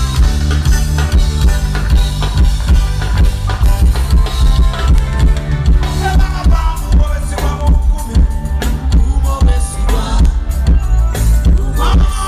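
Loud music over a PA sound system: a heavy bass line and a drum kit beat, with no singing.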